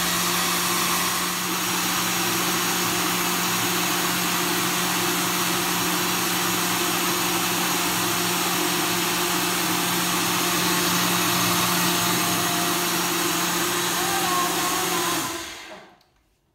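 Nutri Ninja personal blender running steadily at full speed, its cup held down by hand, blending raw carrot and sweet potato with coconut water. Near the end the motor winds down and stops.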